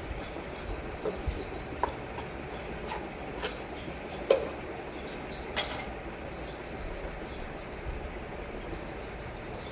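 Scattered light clicks and knocks, one sharper knock about four seconds in, over steady background hiss, with faint high bird chirps now and then.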